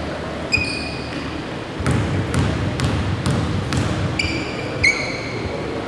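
Basketball dribbled on a hardwood gym floor, five bounces a little under half a second apart, with short high-pitched sneaker squeaks before and after.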